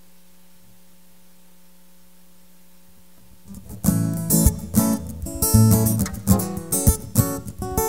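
Acoustic guitar strummed and picked, ringing chords with sharp strokes, coming in about three and a half seconds in; before that only a faint steady hum.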